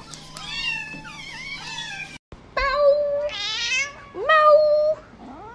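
High, gliding kitten mews. After a cut, a cat meows several times in a row, some calls held level and some rising or warbling.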